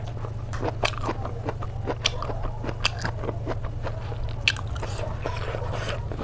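A person chewing and biting pork close to the microphone: irregular wet mouth clicks, with a few sharper crunchy bites, over a steady low hum.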